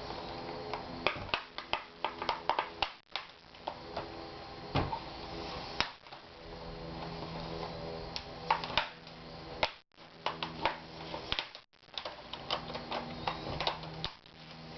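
Plastic snap clips of an Asus X54C laptop's screen bezel clicking loose as a fingernail works around its edge: many sharp, irregular clicks and snaps in quick clusters, over a faint steady hum.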